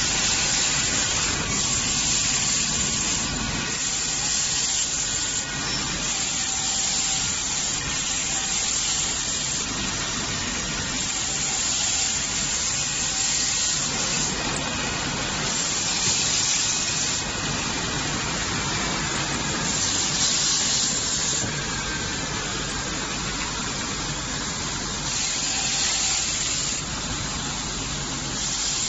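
Veneer sanding machine running: a steady, loud rushing hiss, with a brighter, sharper hiss that swells and fades again several times.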